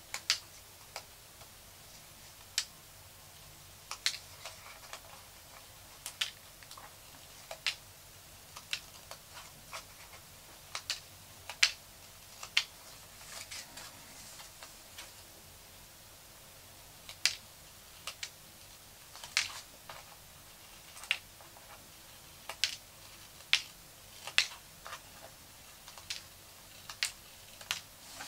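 Small scissors snipping through paper strips, one short crisp snip at a time at irregular intervals of roughly a second, trimming strip ends around the edge of a paper craft. A little soft paper rustling comes about halfway through.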